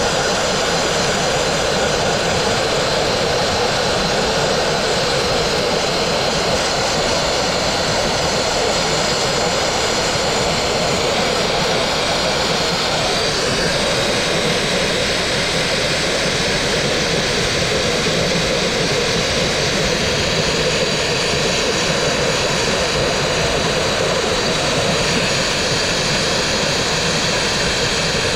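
Dustless blasting nozzle running continuously: a loud, steady rush of compressed air and water carrying crushed glass abrasive, striking a brick wall to strip hard cement-backed paint.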